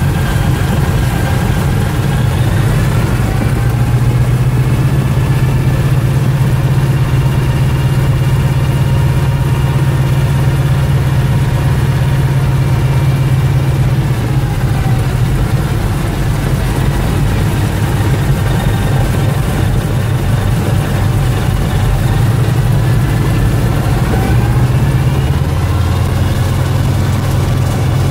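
Ford Tri-Motor's radial engines running, heard from inside the cabin while the plane rolls along the ground: a steady heavy drone whose pitch rises a few seconds in, drops about halfway through and rises again near the end as the throttles are changed.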